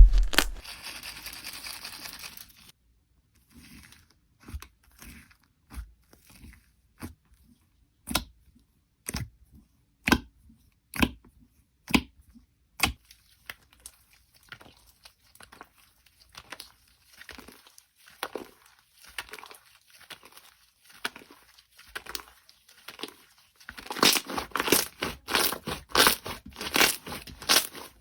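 Slime being pressed and worked by hand: a soft hiss at first, then separate sharp pops about once a second, and near the end a dense run of crackling.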